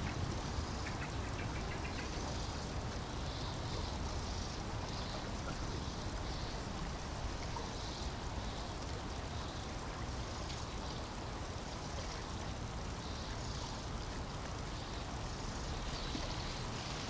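Steady rush of running water with a low rumble underneath.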